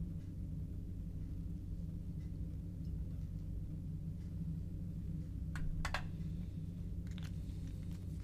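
Steady low room hum with a few light clicks and knocks of glassware being handled (a test tube and a small glass reagent bottle), a short cluster a little past halfway and a couple more near the end.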